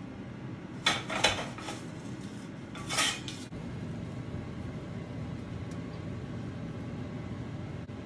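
Metal pizza peel knocking and scraping against a stack of ceramic plates as the pizza is slid onto them, in two short clattering bursts about a second and three seconds in. A steady low hum runs underneath.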